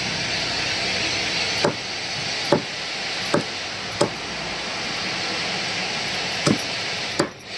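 A large curved cleaver chopping raw chicken on a wooden chopping block: about six sharp chops at uneven intervals over a steady background noise.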